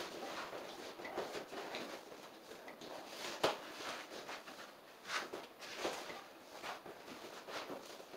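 Vinyl sheet flooring being worked by hand into the edge along the wall: scattered scrapes, rustles and small clicks, with one sharper click about three and a half seconds in.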